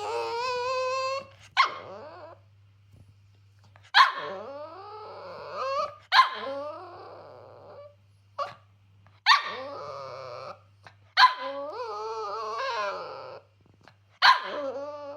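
Cavalier King Charles Spaniel barking and growling in angry outbursts, each a sharp bark running into a drawn-out, wavering growl-whine, about seven times with short pauses between; the dog is protesting that her breakfast was too small.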